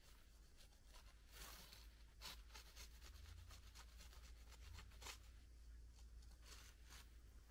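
Near silence with a low hum and faint, scattered scratching and rustling.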